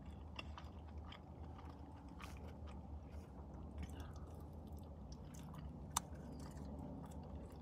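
Close-up mouth sounds of a man biting and chewing fast food, with small wet clicks, over a steady low hum; one sharp click about six seconds in.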